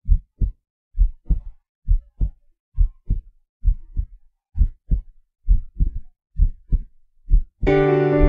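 Heartbeat sound effect: pairs of low thumps, lub-dub, repeating steadily about once a second. Piano music comes in near the end.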